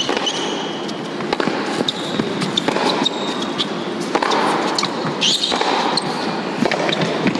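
Tennis rally: sharp racquet strikes on the ball and ball bounces on the hard court, coming every half second to a second, with a few short shoe squeaks, over the steady hush of an indoor arena.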